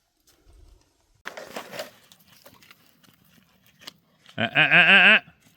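A goat bleats once near the end, a single quavering call lasting just under a second. A brief rustle comes about a second in.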